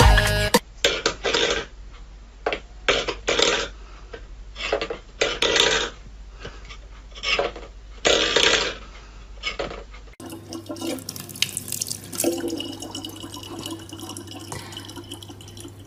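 Stainless-steel pet bowls being pushed and knocked on a wooden floor, in short irregular scraping bursts. About ten seconds in, a kitchen tap runs steadily as a thin stream into a plastic water bottle.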